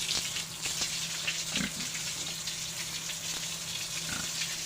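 Pigs grunting, two short grunts about a second and a half and four seconds in, over a steady hiss.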